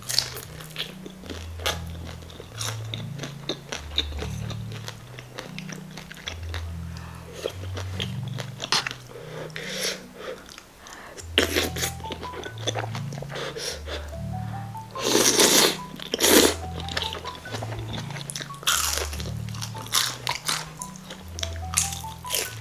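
Close-up crunching bites and chewing of crispy fried guobaorou (Chinese sweet-and-sour fried pork), a run of sharp crackles with the loudest crunches about two-thirds of the way through. Soft background music with a repeating bass line plays underneath.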